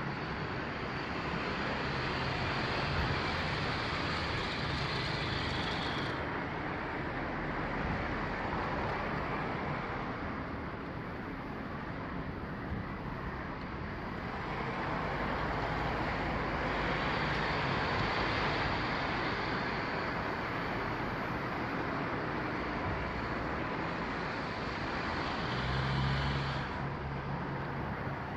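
Road traffic noise: a continuous hiss of passing vehicles that swells and fades every several seconds, with a low engine hum strongest near the end.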